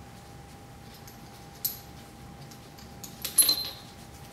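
Steel parts of a Borg-Warner T56 transmission mainshaft clinking together as they are handled: one sharp click about one and a half seconds in, then a brief cluster of ringing metallic clinks a little past three seconds.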